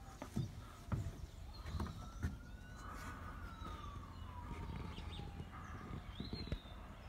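A distant siren wailing slowly, its pitch rising about two seconds in and then falling gradually. Under it are low rumble and a few soft thumps.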